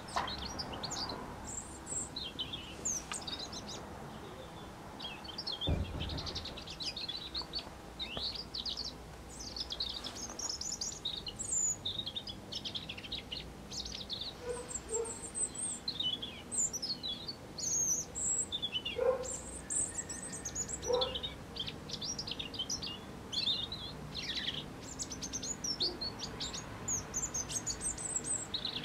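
European robin singing: high, thin warbling phrases of quick rising and falling notes, each a couple of seconds long with short pauses between.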